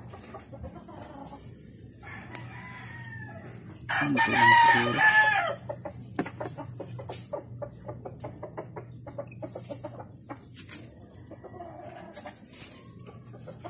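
A rooster crows once, loudly, about four seconds in, after a fainter call. After the crow comes a run of quick small clicks and scrapes from a metal spoon scooping pollen out of the cells of a wooden stingless-bee hive box.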